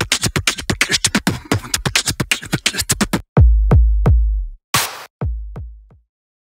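Electronic intro jingle on a drum machine: a fast run of sharp beats, then several deep bass-drum hits that drop in pitch with a crash between them. It stops about six seconds in.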